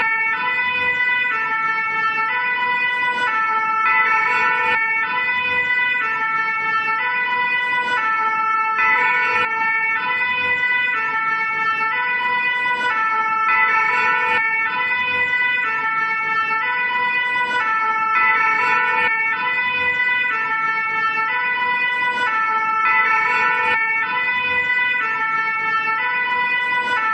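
French fire engine's two-tone siren (the 'pin-pon'), alternating steadily between two close notes.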